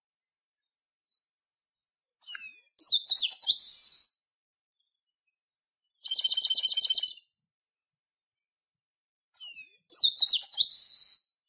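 Chestnut-capped blackbird (garibaldi) singing three high song phrases with pauses between. The first and last phrases are alike, sliding, whistled and buzzy; the middle one is a quick run of repeated notes.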